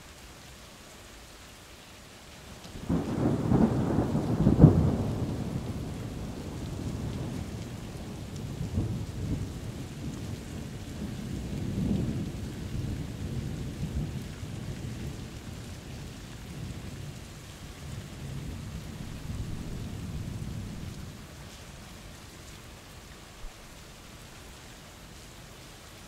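Steady rain with a thunderclap: it breaks in sharply a few seconds in and is loudest a moment later. It then rumbles on in waves for over a quarter of a minute and dies away, leaving the rain.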